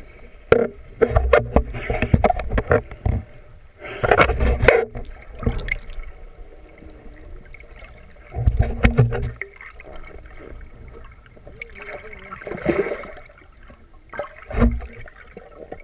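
Muffled water sloshing and bubbling around a submerged camera, coming in irregular louder bursts with a low rumble.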